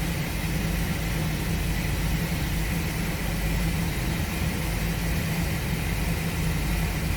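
A 2005 Chevrolet Express's 4.3-litre V6 idling steadily with the air conditioning on for load. It is misfiring on bank 1 (cylinders 1, 3 and 5) and runs shaky, setting a P0300 random-misfire code.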